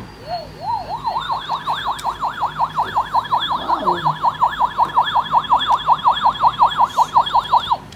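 Battery-powered light-and-sound toy flying saucer playing its electronic sound effect: a fast warbling, siren-like tone of about five sweeps a second. It builds up over the first second and cuts off suddenly near the end.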